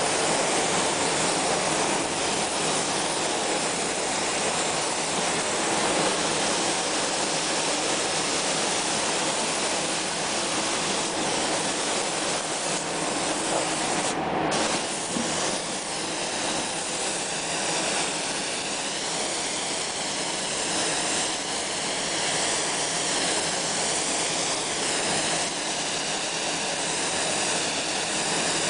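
Compressed-air spray gun hissing steadily as it atomizes spray-chrome solution onto a metal plate, with a short break in the spray about halfway through.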